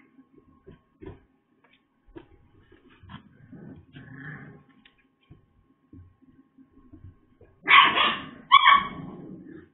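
A dog barks twice, about a second apart, near the end, after several seconds of faint knocks and rustling.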